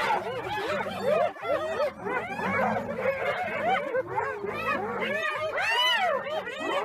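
A group of hyenas calling over one another: a dense chorus of short yelps and giggles that each rise and fall in pitch.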